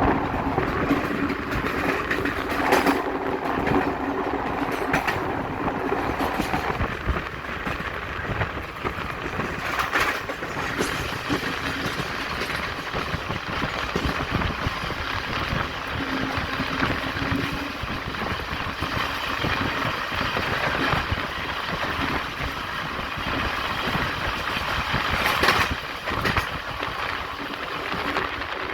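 Tata–Yesvantpur Express passenger train running along the track: a steady rumble of the coaches with the wheels clattering over the rails, and a few sharp knocks along the way.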